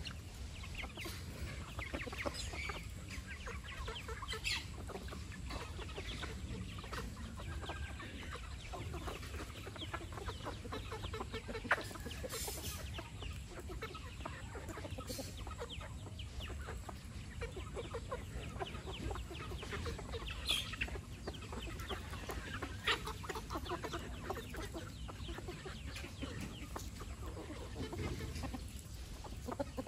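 A flock of chickens clucking as they feed, with a few sharper, higher calls standing out now and then over a steady low rumble.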